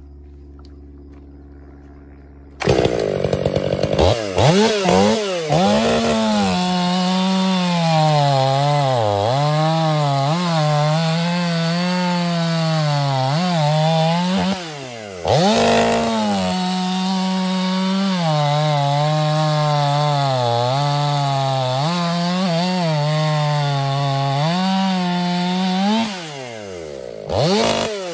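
Stihl MS 500i fuel-injected two-stroke chainsaw with a dual-port muffler starts up about two and a half seconds in and revs. It then cuts through a log at full throttle, its pitch sagging and recovering again and again under load. It lets off briefly midway, cuts again, and drops to idle near the end with one more blip of the throttle.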